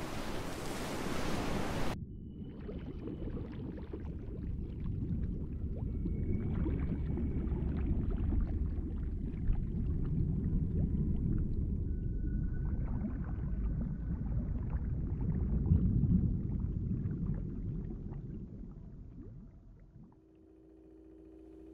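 Ocean surf sound effect that cuts off abruptly after about two seconds into a deep, muffled underwater rumble. Three brief, high, steady tones sound over the rumble, each lower than the one before, and the rumble fades out near the end.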